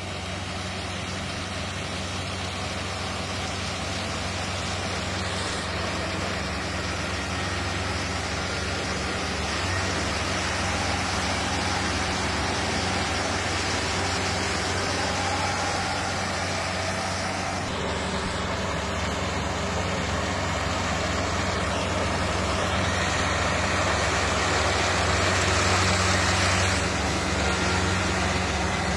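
Kubota PRO588 combine harvester's diesel engine running steadily with a constant low hum, slowly growing louder.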